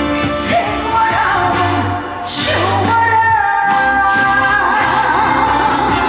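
A woman singing a Korean trot song live over band accompaniment, holding long notes that slide and bend in pitch.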